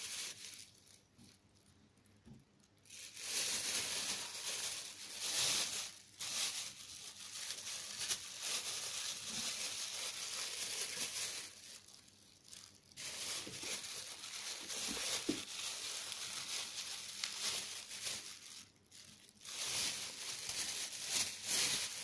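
Plastic refrigerator bag crinkling and rustling as sticky slime is peeled and pulled out of it, in stretches with a few short pauses.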